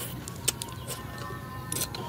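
A person eating noisily, slurping noodles and soup, with a sharp click about half a second in like a metal spoon striking the bowl.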